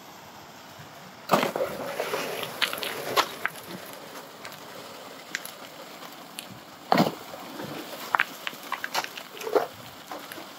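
Shovelfuls of wet, mucky gravel thrown into a running Utmost Adventurer highbanker's hopper: two heavy hits, one about a second in and one about seven seconds in, each followed by stones rattling and clicking as the spray bar's water washes them down. Spraying water runs steadily underneath.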